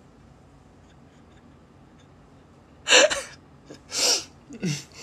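A man's voice in breathy, non-word outbursts: a sharp gasp-like sound about three seconds in, then two shorter breathy sounds, the last falling in pitch. Before it there are a few seconds of quiet room tone.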